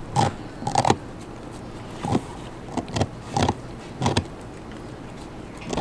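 A Belgian Malinois chewing a raw beef rib, with short, irregular gnawing and chewing noises roughly one or two a second.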